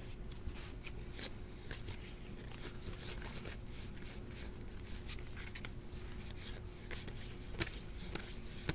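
Soft, quick rustling and flicking of a stack of Panini Luminance football trading cards as they are slid off the pile one by one in the hands, card rubbing against card, with a sharper click near the end.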